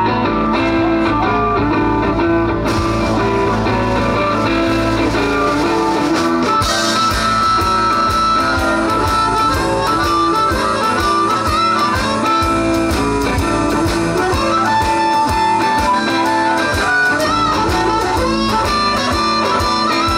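Live rock band playing, led by electric guitars. A drum kit joins with a steady beat about six seconds in.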